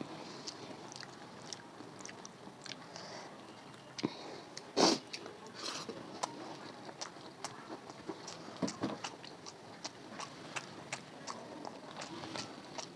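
Close-up eating sounds: a person chewing and biting food by mouth, with scattered wet clicks and smacks and a brief louder sound about five seconds in.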